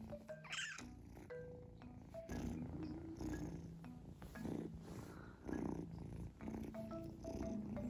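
Munchkin kitten purring while it is stroked, a low rumble that swells about once a second. About half a second in there is a short, high, rising mew.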